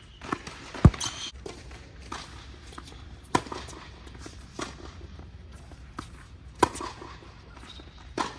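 A string of sharp knocks and thuds a second or more apart, the loudest about a second in with deep body, of a tennis ball being struck and bouncing during play.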